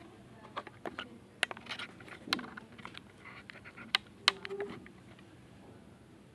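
Irregular sharp clicks and knocks, a dozen or so spread over a few seconds, the loudest pair close together about four seconds in, with a brief low hum just after them.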